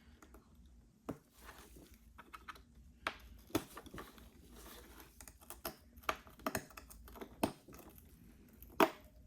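Irregular sharp clicks, ticks and short scrapes of a pry tool chipping and levering cracked back glass off an iPhone SE.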